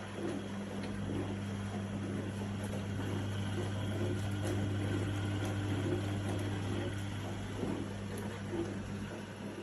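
Singlehomie tabletop mini dishwasher running: a steady low motor hum over an even hiss.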